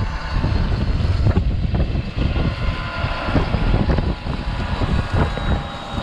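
John Deere tractor running steadily as it pulls a corn planter past close by, a continuous low engine rumble.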